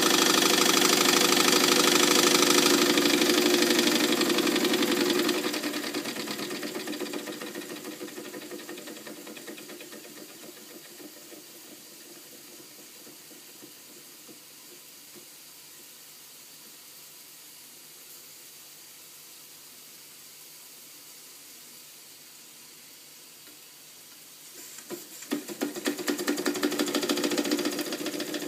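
Weeden toy steam engine running, its piston, crank and flywheel making a rapid mechanical clatter. It is loud for the first few seconds, then fades over several seconds to a faint steady run, and becomes loud again about 25 seconds in.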